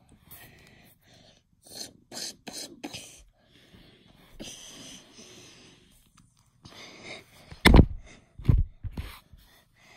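Scattered rubbing and rustling handling noises, with two loud bumps close together near the end, as the phone is knocked or covered.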